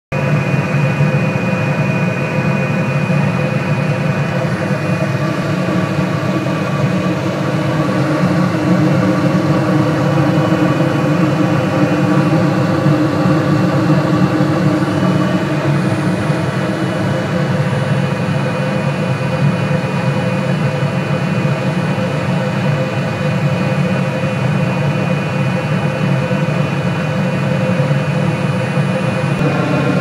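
Trane commercial rooftop HVAC unit running in heating mode, its fans and gas burners making a loud, steady drone with several steady hum tones in it.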